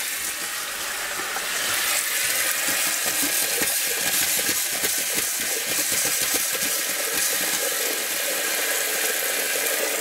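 Motorhome bathroom sink faucet running full into the basin with an irregular spitting crackle: air being bled out of the freshly pressurized fresh-water lines.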